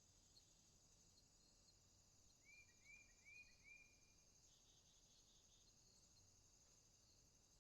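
Faint, steady chorus of insects trilling, with a bird giving four short chirps about two and a half seconds in.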